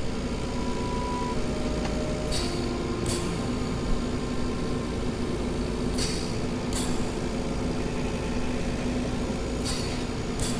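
Hospital machine ambience: a steady electrical hum with held tones, and two short electronic beeps in the first couple of seconds, a higher one then a lower one. Over this come pairs of short air hisses, the two about a second apart, repeating roughly every three and a half seconds.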